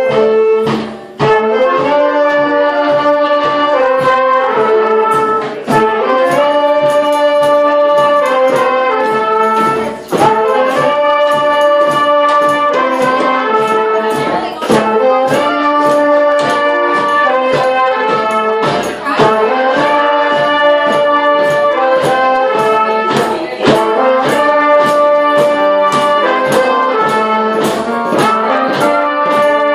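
Brass band of trumpets, trombones and other horns playing a cumbia melody together over a steady percussion beat, in phrases of four to five seconds with brief breaks between them.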